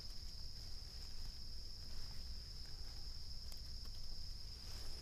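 Insects chirring in a steady, unbroken high-pitched band, with a few faint rustles of pine-needle litter as a matsutake mushroom is worked loose by hand.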